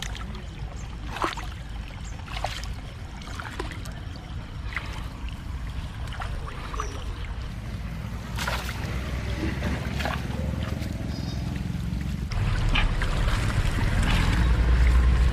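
Water splashing and knocking around a small boat, with a steady low wind rumble on the microphone that grows louder near the end.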